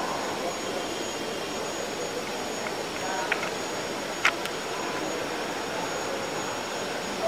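Steady, noisy hum of a hushed event hall, with a short sharp click about four seconds in and a fainter one just before it.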